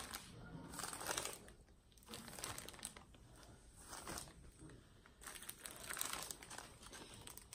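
Clear plastic bags of diamond painting drills crinkling as they are handled and set down, in several short bouts.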